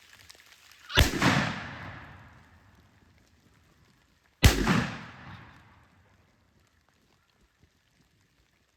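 Two shotgun blasts about three and a half seconds apart, each a sharp crack followed by a long rumbling echo that fades over a second or two: two hunters each shooting at a turkey.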